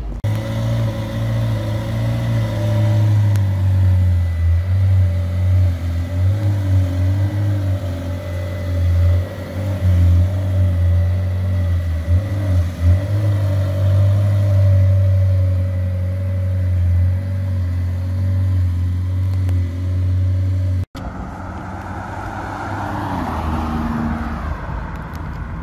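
A McLaren 720S's twin-turbo V8 idles steadily with a low, even note that wavers slightly. About 21 seconds in, a hard cut switches to a Lamborghini Urus driving by, its engine note rising and then falling.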